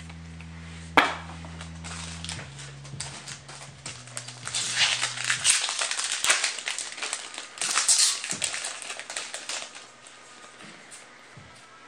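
Foil trading-card booster pack wrapper crinkling and rustling as it is torn open and handled, thickest from about four to ten seconds in, with a sharp click about a second in. Low held background tones sound under the first five seconds.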